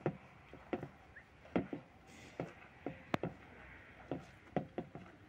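Hands scrubbing wet cloth in a metal washbasin, giving irregular sharp knocks and clicks against the basin, about two or three a second, with one sharper click a little after three seconds.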